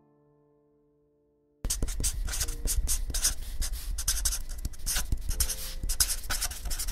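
Pencil scratching on paper in quick, irregular strokes as a word is written. It starts about a second and a half in, after a faint fading piano-like note.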